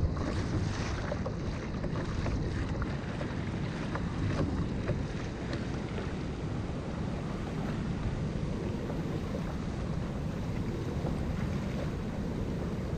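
Wind buffeting the microphone, with choppy sea water washing around a kayak in rough conditions.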